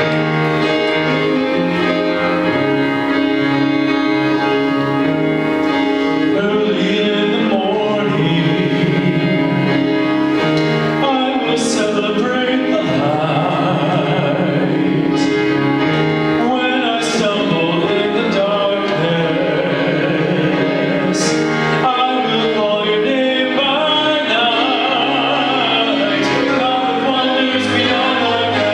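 Worship music: singers over keyboard accompaniment, a congregational hymn or worship song.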